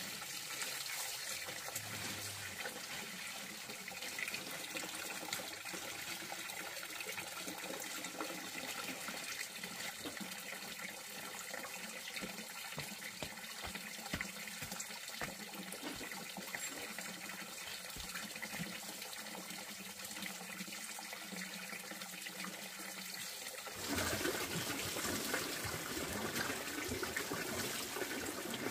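Running water, a steady flowing noise that gets louder about three-quarters of the way through.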